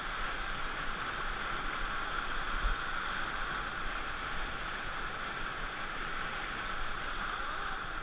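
Steady rushing of whitewater churning against an inflatable raft as it surfs a river wave, with one brief low bump a little under three seconds in.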